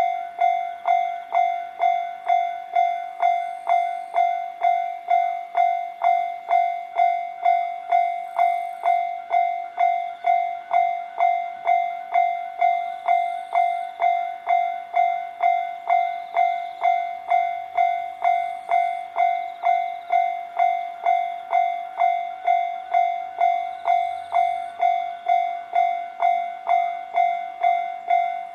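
Japanese level-crossing warning bell ringing in an even, steady rhythm of about two strikes a second, each strike a single ringing tone: the crossing's alarm is active.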